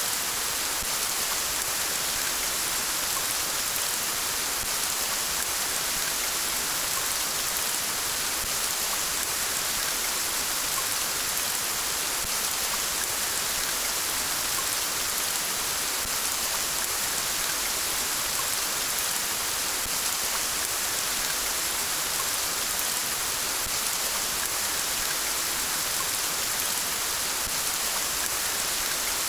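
Steady rain falling, an even hiss of raindrops on surfaces, with the rush of a river blended beneath it.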